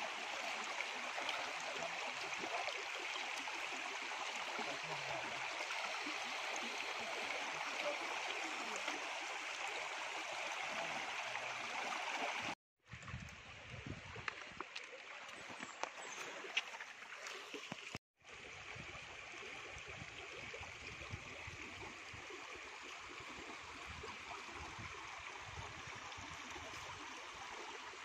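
River water flowing steadily, a continuous rushing hiss. The sound cuts out briefly twice, and between the cuts there is a rougher stretch with low rumbling and a few sharp knocks and clicks.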